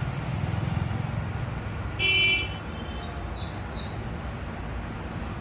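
A short horn-like toot, about half a second long, about two seconds in, over a steady low hum; faint high chirps follow it.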